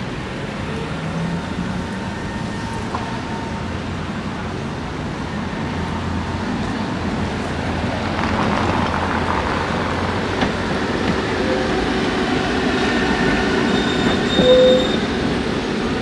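Two-car street tram rolling along street track, growing louder as it comes closer and passes. High wheel squeal as it takes the curve in the last few seconds, with one short louder squeal near the end.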